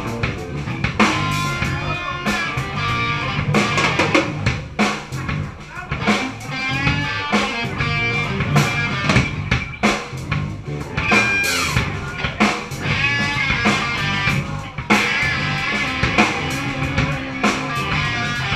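Live rock band playing an instrumental passage: an electric guitar plays a lead line with bending, sliding notes over a steady drum-kit beat.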